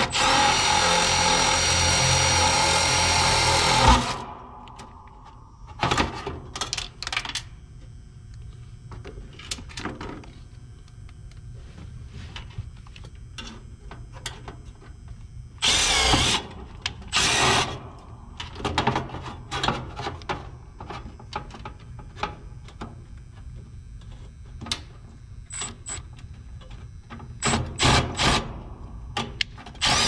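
Cordless drill/driver running steadily for about four seconds as it drives a screw at the run capacitor's mounting strap on an air-conditioner condenser. Scattered clicks and knocks of hands on wiring and metal follow, with a few short louder bursts later on and near the end.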